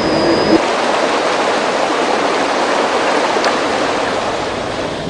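Rushing water of a river running over rocky rapids: a steady hiss that slowly fades toward the end.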